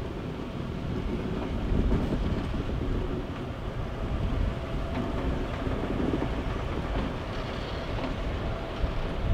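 ST44 (M62-type) diesel locomotive passing close by, its two-stroke V12 diesel running as it hauls a train of empty timber flat wagons, with a steady heavy rumble of engine and wheels on the rails. It grows a little louder over the first couple of seconds as it comes level.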